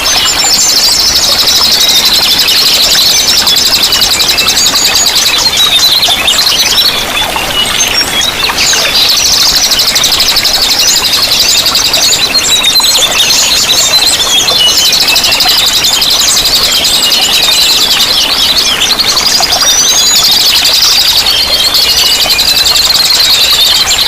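Dense chorus of several small songbirds chirping and trilling at once, continuous and fast, over a steady wash of running water; the birdsong thins for a moment about seven seconds in.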